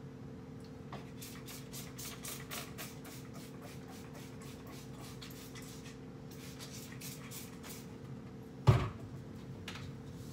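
Cloth scrubbing a wooden kitchen cabinet door in quick back-and-forth strokes, in two spells. One loud knock on the cabinet comes near the end, over a steady low hum.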